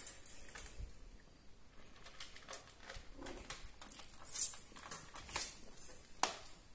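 Cats eating on the floor of a wire cage: irregular small clicks and rattles, the loudest about four and a half seconds in.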